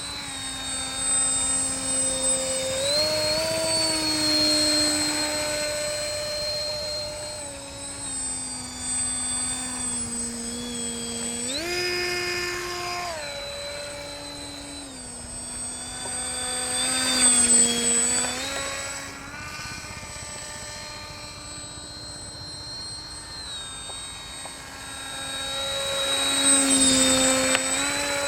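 Radio-controlled autogyro flying, its motor and propeller running with the pitch stepping up and down as the throttle changes. It grows louder twice, as if passing close, about two-thirds through and again near the end.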